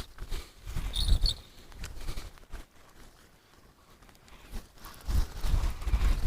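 Wind buffeting the microphone in irregular low gusts, with a few short clicks about a second in.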